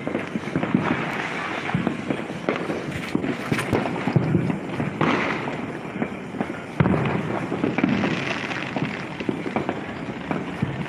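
Firecrackers and fireworks going off across the city: a continuous crackle of many overlapping bangs and pops, with a sharper, louder bang about two-thirds of the way through.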